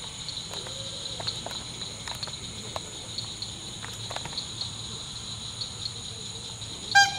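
Crickets chirping steadily in a pulsing high trill. Near the end comes one short, loud, steady-pitched whistle blast, the signal to start the exercise before the Malinois is sent.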